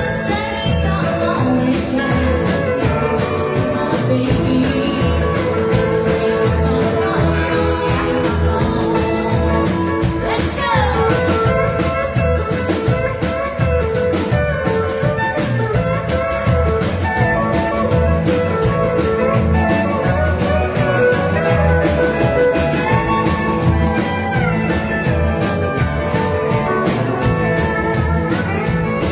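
Live country band playing: electric guitar, steel guitar, drums and upright double bass over a steady beat, with one sliding steel-guitar-like glide about ten seconds in.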